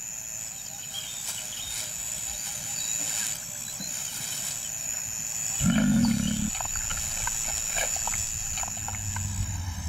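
A lion gives one short, low growl about six seconds in, over a steady high insect whine.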